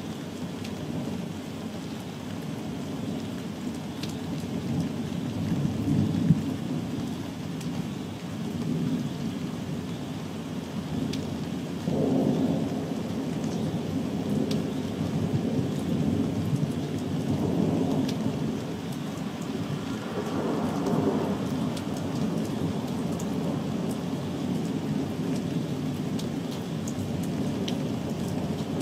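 Continuous rolling thunder, a low rumble that swells and fades in several waves without a break, over steady falling rain with a few sharp drop ticks.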